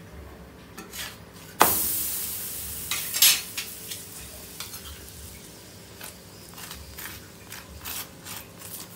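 A parotta frying in butter on a hot flat griddle pan. A sudden loud sizzle starts about a second and a half in and fades over the next few seconds, with a metal spatula scraping and tapping on the pan.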